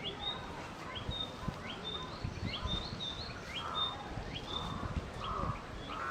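Male narcissus flycatcher singing: a run of short, rising whistled notes, several a second, over a steady low background rumble. A few lower, blurred notes join in during the second half.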